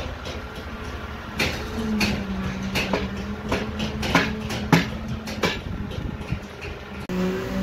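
Irregular sharp metal clanks and knocks from steel rebar and scaffolding being worked on, over a steady machine hum that sets in about two seconds in.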